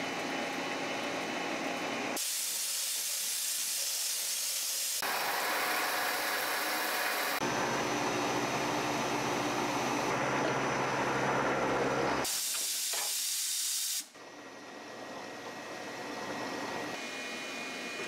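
CNC milling machine cutting steel plate with flood coolant: a steady hiss of spindle, cutter and coolant spray. The sound changes abruptly several times, brightest a few seconds in, with a low steady hum added in the middle, and drops to a quieter hiss about three-quarters of the way through.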